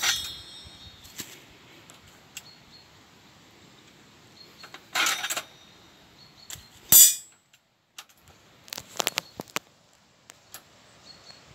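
Wire cage trap clanking and rattling as a metal trapping comb is pushed in, then a single sharp air pistol shot, the loudest sound, about seven seconds in. A few light metallic clicks follow.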